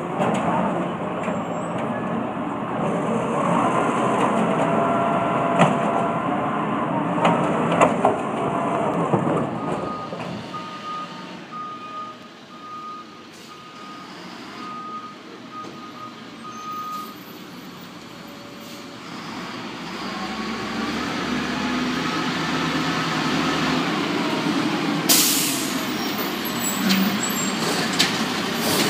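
Peterbilt automated side-loader garbage truck running, its engine fading as it moves off. A back-up alarm sounds a row of short, even beeps, about one and a half a second, in the quieter middle stretch. The truck then draws near again and its air brakes let out a short hiss near the end.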